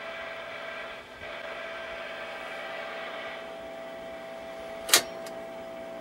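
Steady buzz with a constant tone from the speaker of a 1949 Hallicrafters T-54 tube television, which is only barely picking up the sound of a weak, poorly received broadcast signal. A single sharp click sounds about five seconds in.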